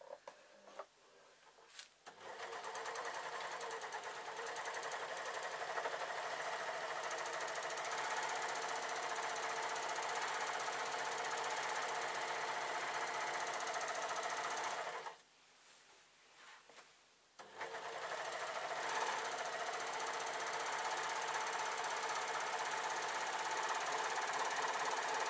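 Overlocker (serger) running at a steady speed, overlocking the raw bottom edge of a lightweight jacket. A few light clicks come before it starts; it stops for about two seconds midway, then runs again.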